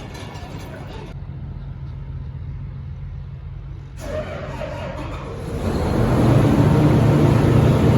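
A vehicle engine running steadily, then getting louder under load from about four seconds in with a rushing noise, and cutting off suddenly at the end.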